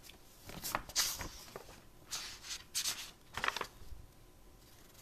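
Packaging rustling and crinkling in several short bursts as items are unwrapped and handled.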